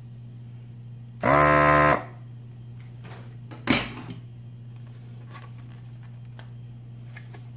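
Hakko FR-301 desoldering gun's vacuum pump buzzing loudly for under a second, rising briefly in pitch as it starts, while it sucks the solder off a capacitor lead. About two seconds later there is a single sharp knock, over a steady low hum.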